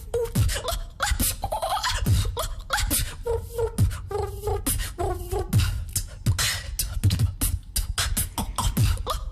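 A woman beatboxing a fast groove: vocal kick drums, with snare and hi-hat clicks between them. Short pitched vocal notes come in around the middle.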